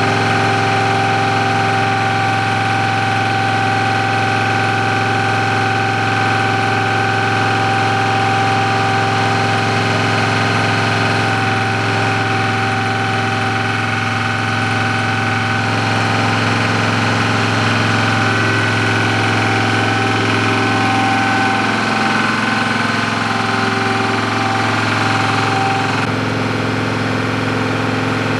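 A steady engine drone, like an engine idling, holding a low hum with a few constant tones. Its pitch shifts slightly about three quarters of the way through.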